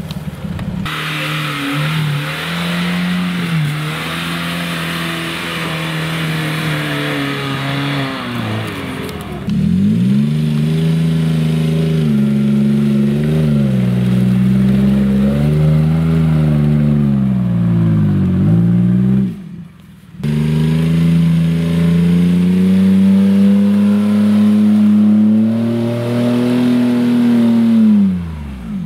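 Jeep Wrangler Rubicon's 3.8-litre V6 engine revving hard as the Jeep churns through deep mud, its pitch rising and falling over and over, with two abrupt breaks.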